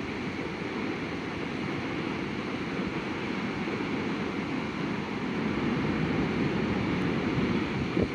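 Steady, gusting rush of wind buffeting the microphone, with a short knock near the end.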